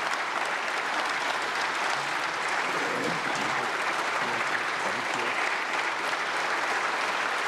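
Sustained applause from members filling a large parliamentary chamber, a steady dense patter of many hands, with faint voices underneath for a few seconds in the middle.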